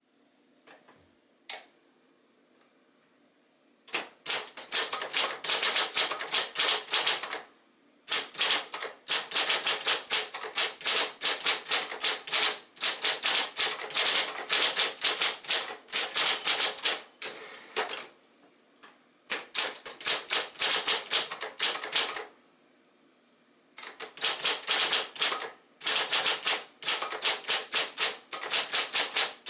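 1972 Royal Saturn electric typewriter being typed on: its motor-driven typebars strike the platen in fast runs of keystrokes, several a second, broken by short pauses. A couple of single clicks come first, and the typing starts about four seconds in.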